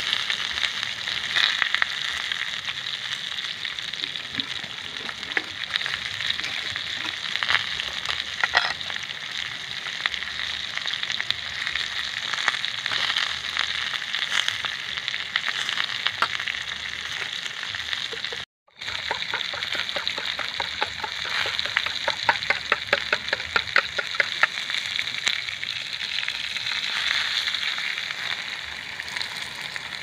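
Sliced potato and sausage sizzling steadily in a frying pan over a portable butane canister stove. A little past halfway the sound cuts out for a moment. Then a fork beats eggs on a ceramic plate in a quick, even run of clicks for a few seconds, under the continued frying.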